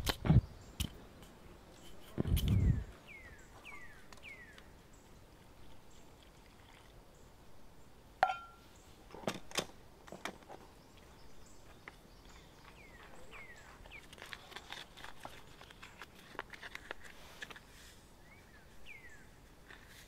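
Small handling sounds of hand-mixing pizza dough on a stone: scattered clicks and knocks, a low thump about two seconds in, and a small packet crinkling near the end. A bird gives a run of four short falling chirps a few seconds in.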